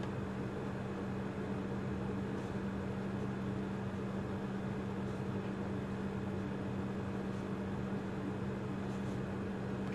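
A steady machine hum with a low constant tone and a hiss underneath, unchanging throughout.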